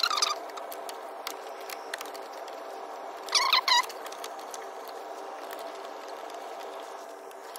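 New rubber timing belt being worked by hand onto the pulleys of a Ford 2.0 TDCi diesel engine: two short squeaks, one at the start and one about three and a half seconds in, with light clicks of handling between them, over a steady hum.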